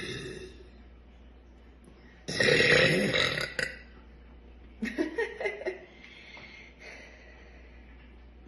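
A woman's long, loud burp about two seconds in, brought up by drinking carbonated kombucha. A shorter sound comes right at the start, and a choppy, stuttering run of short sounds follows about five seconds in.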